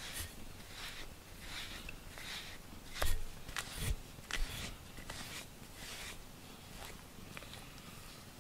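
A cat's fur being brushed: repeated swishing strokes of a pet brush, about one to two a second, with two dull knocks about three and four seconds in.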